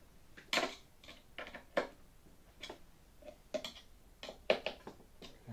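Irregular clicks and taps of a hex driver and screws as the engine mount's screws are snugged tight and the mount is handled, about a dozen sharp ticks.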